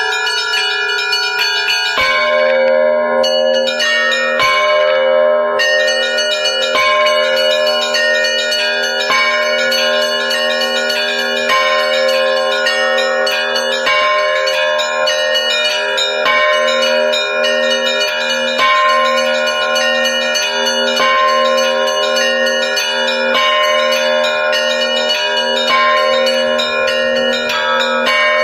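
Russian church bells rung in a full zvon: a rapid pattern of small bells over a deep bell that comes in about two seconds in and strikes roughly every two seconds.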